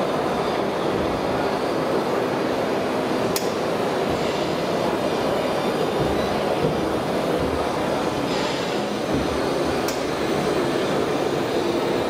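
Steady rumbling din of a busy exhibition hall, with two sharp clicks, one about three seconds in and one near ten seconds.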